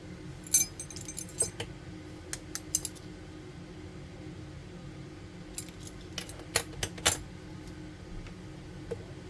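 Light, sharp clicks and clinks of small tools and phone parts being handled during an iPhone 7 battery replacement, coming in scattered clusters over a steady low hum.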